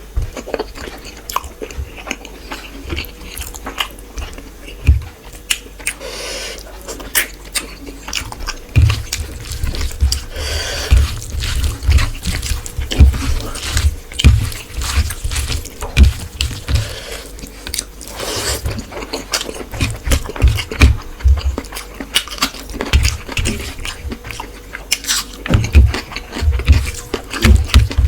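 Close-up eating sounds of a person eating fish with rice and curry: wet chewing and lip smacks with many small clicks and frequent low bumps.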